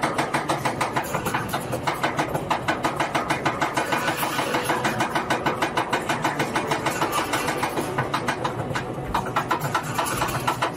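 Water coaster boat being hauled up its lift hill: the lift mechanism clacks in a rapid, even rhythm, about seven clacks a second, with a mechanical running noise underneath.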